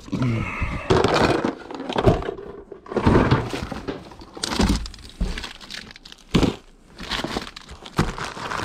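Boxes being unpacked and rummaged through: objects knocking, scraping and clattering against each other, with cardboard handled, in short noisy bursts about a second apart.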